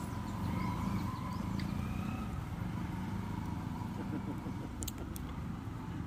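A steady low engine hum, with a few faint light clicks about five seconds in.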